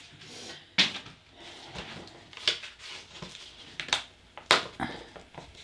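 Scattered sharp clicks and crackles of a sheet of adhesive vinyl and its stiff backing paper being handled and flexed by hand, with about four louder snaps.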